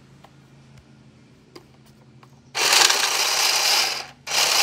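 Two-deck automatic card shuffler running with a loud mechanical whirr and rattle of cards, starting about two and a half seconds in and lasting about a second and a half, then a short second burst near the end. Only one side feeds its cards: the other side's wheel is not taking its deck, which the owner suspects is a wheel not fully engaging the cards.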